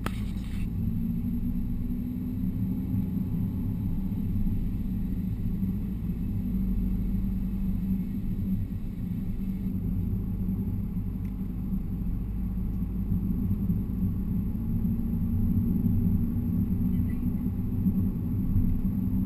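Steady low rumble of a Skoda Laura TDI turbo-diesel car cruising at road speed, heard from inside the cabin as engine and tyre noise.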